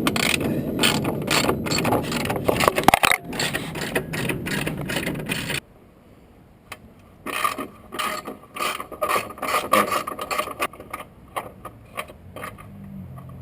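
Ratchet wrench clicking rapidly as the engine mount bolts are backed out, in two bouts with a pause of about a second and a half between them.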